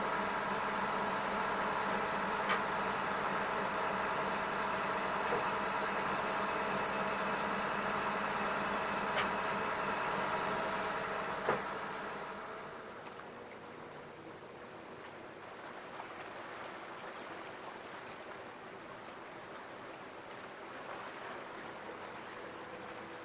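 Boat engine running steadily, heard from inside the wheelhouse, with a few sharp clicks. About twelve seconds in it gives way to a quieter, even wash of water.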